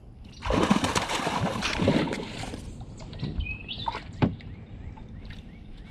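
Water sloshing and splashing around a small fishing boat for about two seconds, then a few sharp knocks and a short rising bird chirp.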